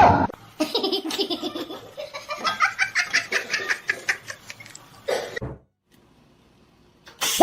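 A person laughing hard in a quick run of repeated bursts, several a second, for about four seconds, then breaking off.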